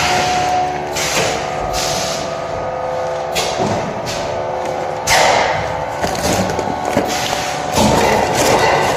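Vacuum packaging machine with a punch cutter running: a steady mechanical hum, with sharp clacks and thuds from its mechanism at uneven intervals.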